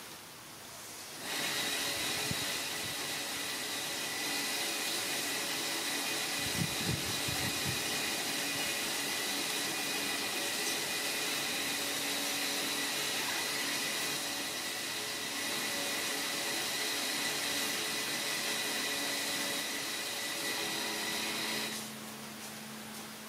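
Steady mechanical whirr of a running motor with a constant high whine, switching on about a second in and cutting off shortly before the end. A few soft low thuds come about six to seven seconds in.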